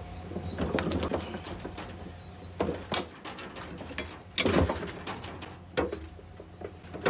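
Socket wrench working on a push mower's blade bolt: irregular metal clicks, knocks and clanks, with a few sharper strikes about three and four and a half seconds in, as the stubborn bolt resists.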